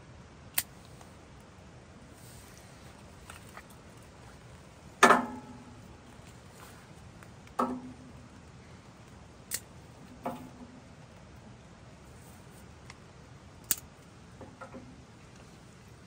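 About seven sharp knocks and clinks at irregular intervals, over a faint steady background. Several ring briefly with a low pitched tone, and the loudest comes about five seconds in.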